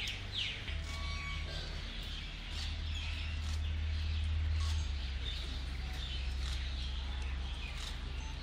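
Small birds chirping over and over, short quick calls, above a low steady rumble that swells in the middle.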